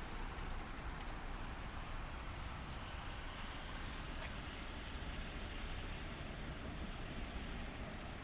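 Steady hiss of light rain on a city street, with the low rumble of traffic underneath.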